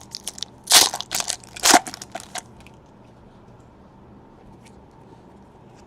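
Crinkling and rustling of a trading-card pack wrapper and cards being handled, with two louder rustles in the first two seconds and a few light clicks, then only faint room tone.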